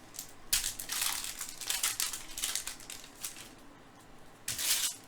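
A baseball trading card pack's wrapper being torn open and crinkled in the hands, in a run of crackling bursts with a louder crinkle near the end.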